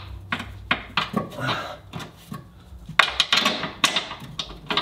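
Metal clinks and clicks of hand tools and bolts as the rear differential carrier's mounting bolts are threaded in and worked. The clicks are scattered at first, then come quicker and louder from about three seconds in.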